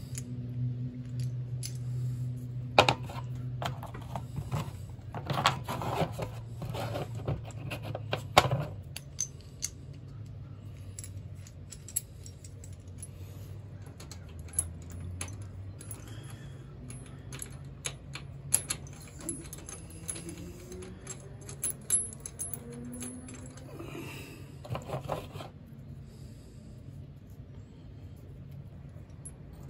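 Small steel brake parts (shim, pad, caliper pieces and pins) clinking and scraping as they are handled and fitted into a lawn tractor's brake caliper. The clicks are scattered, busiest in the first third and again briefly near the end, over a low hum that fades out about halfway.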